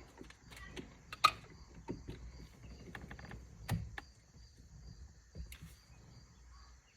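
Scattered light clicks and taps of hand tools and small parts being handled, with one sharp tap about a second in and another knock near the four-second mark.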